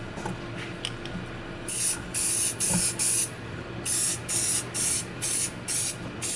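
Aerosol spray-paint can sprayed in about ten short hissing bursts, starting a couple of seconds in, with a brief pause midway. The can is almost out of paint.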